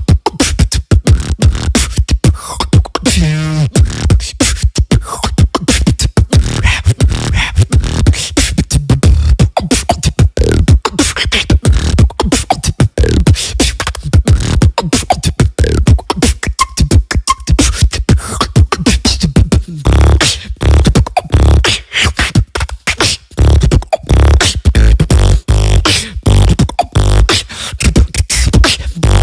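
Human beatboxing, close into a microphone: a fast, unbroken run of mouth-made kick drums, snares and hi-hat clicks, with heavy low bass hits strongest in the second half and a brief pitched vocal sound about three seconds in.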